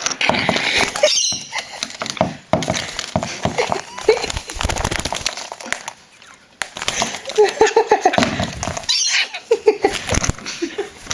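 Lorikeet chattering and calling while it shakes and drags a small object about, with scattered clicks and knocks throughout.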